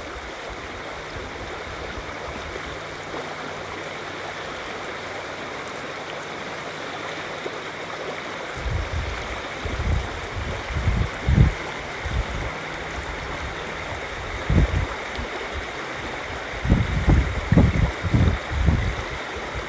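River water rushing steadily. From about halfway through, gusts of wind buffet the microphone in uneven low rumbles.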